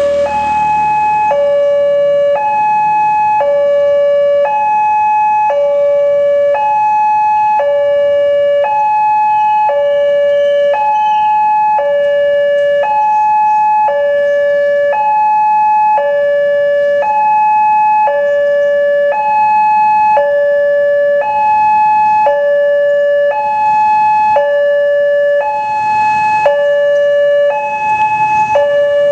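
Electronic two-tone railway level crossing alarm sounding continuously, a higher and a lower tone alternating evenly, each lasting under a second. It warns that a train is approaching the crossing.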